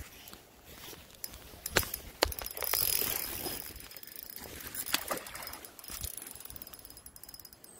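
Fishing rod and reel being worked as a fish is played: scattered sharp clicks and ticking, with a short rush of water noise about three seconds in.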